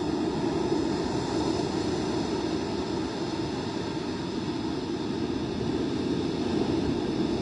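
Wind buffeting the microphone: a steady low rumbling rush of wind noise.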